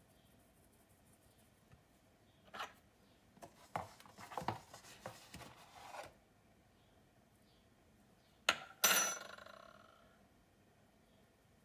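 Small metal mesh sieve tapped and shaken to sift cocoa powder: soft taps and a stretch of light rustling and scraping. About eight and a half seconds in there is a sharp click, then a ringing metal clink that fades over about a second.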